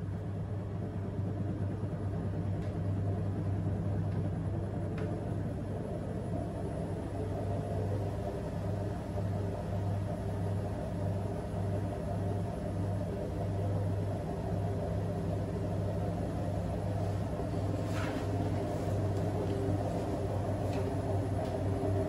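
AEG front-loading washing machine in its intermediate spin: a steady motor hum and drum rumble, getting a little louder toward the end, with a few faint ticks.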